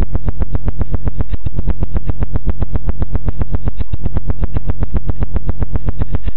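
Loud, deep synthesizer bass: one steady low note pulsing about eight times a second.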